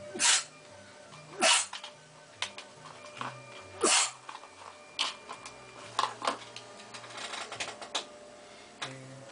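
A cat's fur rubbing over the camera's microphone as the cat presses against it: three loud rustling swishes in the first four seconds, then lighter brushes and taps. Faint music plays underneath.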